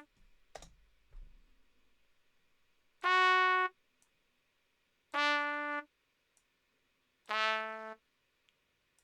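Three separate notes from a brass-like DAW software instrument, each held for well under a second, stepping down in pitch, with a mouse click near the start.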